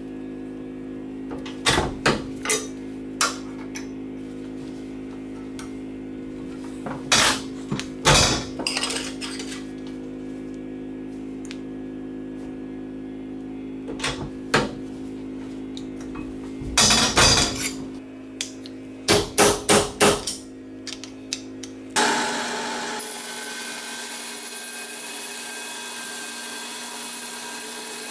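Sharp metallic clanks and knocks from a manual finger brake as its clamp and bending leaf work aluminium sheet, some single and some in quick clusters, over a steady hum. Near the end this gives way to a band saw running with a steady hiss.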